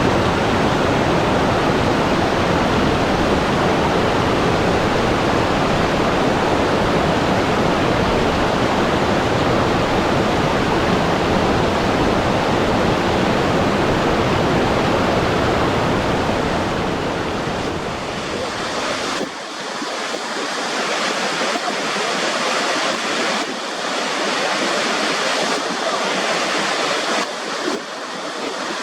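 Steady, loud rushing water. About two-thirds of the way through it changes abruptly to a thinner, higher water sound with irregular surges.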